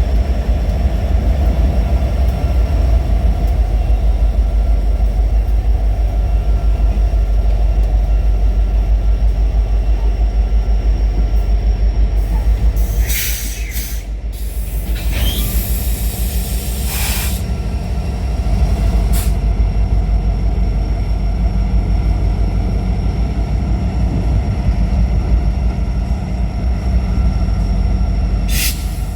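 Long freight train rolling past: a steady heavy low rumble of wheels on rail, with a few short high-pitched bursts, the first about halfway through.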